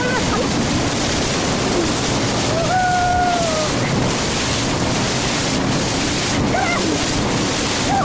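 Wind buffeting the microphone and water rushing past the hull of a moving boat, a steady loud rush. A held, slightly falling tone sounds about three seconds in, and short rising-and-falling tones come near the end.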